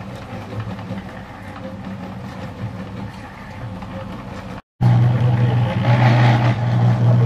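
A cement mixer's motor running with a steady low hum. After a sudden cut about two-thirds of the way in, it is much louder, with a rougher rattling noise over the hum.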